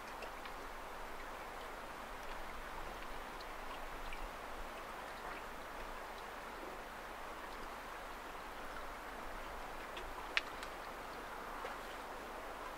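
Steady wash of water along a moving sailing boat's hull, with a few faint ticks and one sharp click about ten seconds in.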